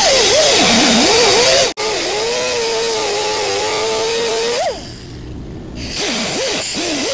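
Hand-held cutoff wheel grinding through the rusted sheet-metal floor pan of a 1973 Dodge pickup cab, its whine wavering up and down in pitch as the wheel bites into the metal. About two-thirds of the way in the pitch climbs sharply and the cutting sound drops away for about a second, then picks up again.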